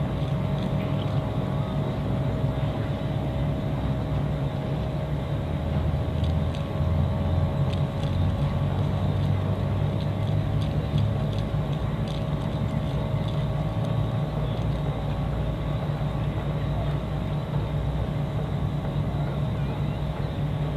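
An engine running steadily: a low, even drone with a couple of faint steady higher tones over it.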